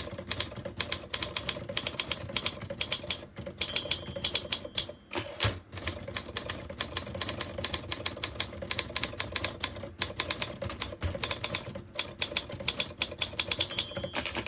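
1954 Olympia SM2 portable typewriter being typed on quickly: a fast, dense run of key strikes with a few short pauses. Its action is set up light and easy to type on.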